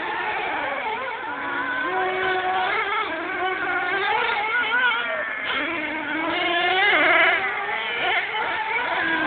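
Several radio-controlled off-road race cars running on a dirt track, their motors' high buzz rising and falling in pitch as they speed up and slow down, several at once. There is a louder rising rev about seven seconds in.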